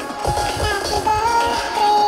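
Background music: a song with a sung melody of held notes over a steady beat.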